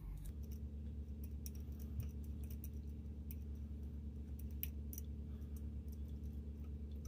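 Small metal screws being threaded by hand into a metal card tool, giving scattered light metallic clicks and ticks at irregular intervals, over a steady low hum.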